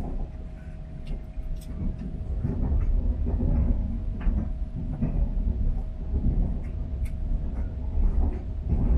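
Running noise of a KTX high-speed train heard from inside the carriage: a deep rumble that grows louder about two and a half seconds in, with a steady hum and scattered light clicks and rattles.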